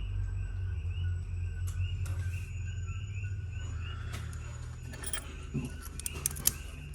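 Insects, likely crickets, chirping steadily in the background at about four chirps a second, over a low hum. Near the end come a few sharp clicks, from the padlock being handled.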